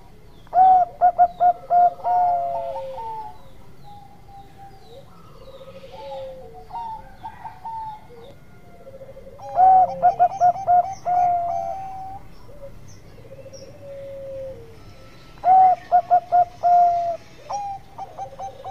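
Zebra dove (perkutut Bangkok) cooing: three loud bouts of its song, each a quick run of short staccato coos followed by a few longer, drawn-out notes, with fainter cooing in between.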